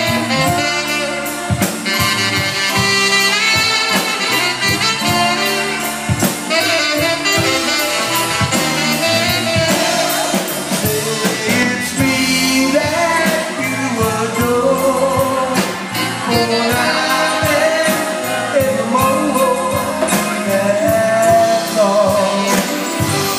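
Live band playing an instrumental passage led by saxophone and horns, over drums, bass and electric guitar.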